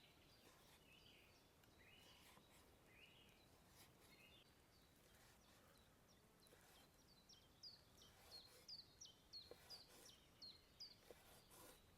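Faint birdsong: a few warbling calls, then, about halfway through, one bird repeating a short falling chirp about three times a second for several seconds. A few faint clicks sound now and then.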